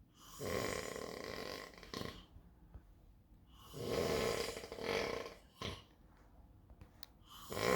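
A sleeping man snoring, three long snores about three and a half seconds apart, the first two each ending in a short sharp catch; the third begins near the end.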